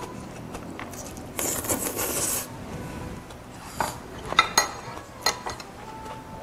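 Eating utensils clinking and scraping against dishes at a meal table. A noisy scrape comes about a second and a half in, and several sharp clicks follow in the second half.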